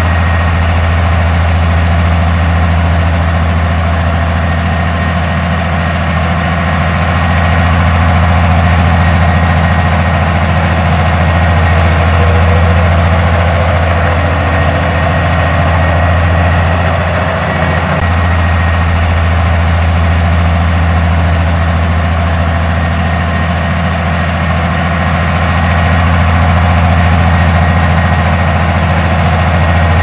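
Komatsu D58P crawler bulldozer's diesel engine running steadily under load as the blade pushes a pile of dirt, a deep hum with a thin steady whine above it.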